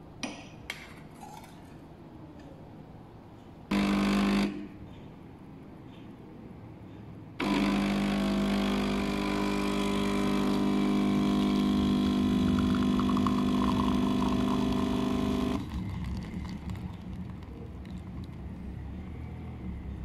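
DeLonghi Dedica espresso machine's vibration pump buzzing as it pulls a shot into the cup: a short burst about four seconds in, then after a pause a steady loud buzz for about eight seconds that cuts off suddenly. Two light clicks at the start as the cup is set down on the drip tray.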